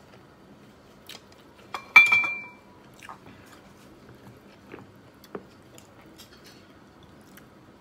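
A person chewing a mouthful of rice eaten by hand, with faint scattered mouth and finger clicks. About two seconds in, a single sharp clink of a hard object rings out briefly; it is the loudest sound.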